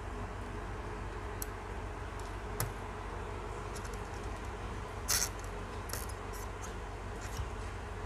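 Light metallic clicks and taps of tweezers and a soldering iron tip against a laptop motherboard while a capacitor is desoldered, about half a dozen spread out, the loudest about five seconds in, over a steady low electrical hum.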